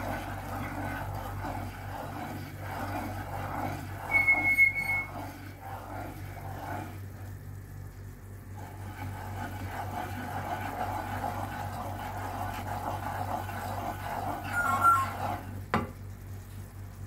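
Wooden spatula stirring and scraping a bubbling butter, sugar and milk mixture in a frying pan as it cooks down toward a caramel, with a soft sizzle under a steady low hum. Two short high-pitched sounds, about four seconds in and near the end, are the loudest moments.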